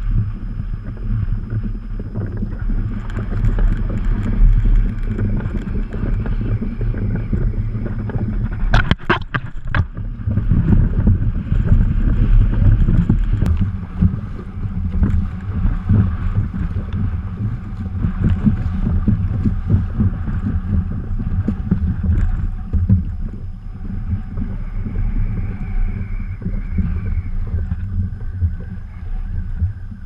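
Strong wind buffeting the microphone in a low, uneven rumble, with choppy water slapping around a kayak. A quick cluster of knocks comes about nine seconds in.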